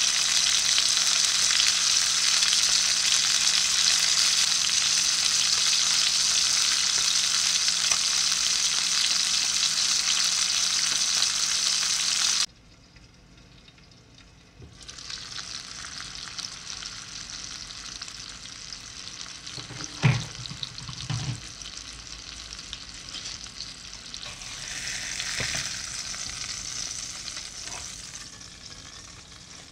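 A whole stuffed Caspian mullet frying in hot oil in a pan, a loud steady sizzle. It cuts off suddenly about 12 seconds in and comes back quieter with the pan under its glass lid, with a couple of sharp knocks around two-thirds of the way through.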